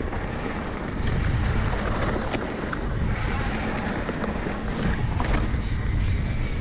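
Wind buffeting the microphone and tyre rumble from a Pivot Switchblade mountain bike being ridden on a trail, with occasional sharp clicks and rattles from the bike.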